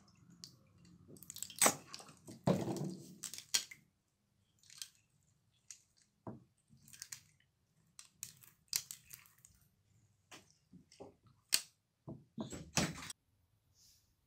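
Silicone spatula stirring and scraping wet slime full of small beads against a glass baking dish: irregular squelches, clicks and scrapes with short pauses between, the longest squelch about two and a half seconds in.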